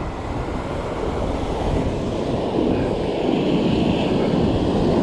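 Surf washing up the beach, mixed with wind rumbling on the microphone; the wash grows a little louder about three seconds in.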